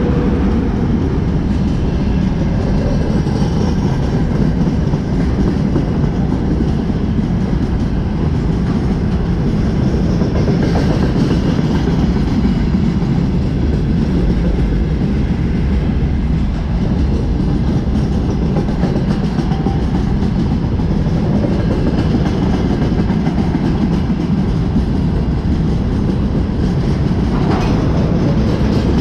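Freight train tank cars rolling past close by at speed: a steady, loud rumble and clatter of steel wheels on the rails.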